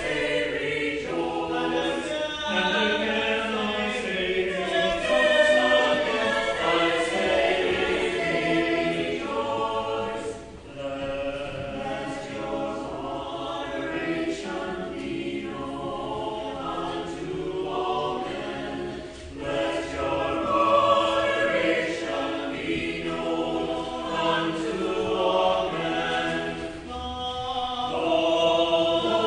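Church choir singing a sung part of the Mass in sustained phrases, with brief breaks between phrases about ten and nineteen seconds in.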